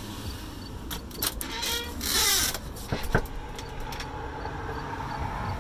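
A door being handled: scattered clicks and rustling, a loud rush of noise about two seconds in, then a short rising creak about three seconds in.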